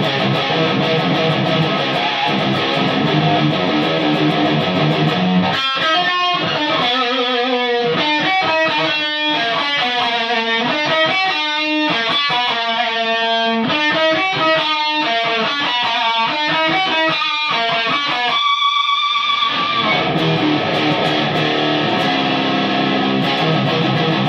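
Electric guitar played through a homemade high-gain tube amplifier built from 1930s AF7 and AL4 valves, with a bright, aggressive distorted tone. Heavy chords give way about five seconds in to a run of picked single notes, then a held, wavering high note, then chords again.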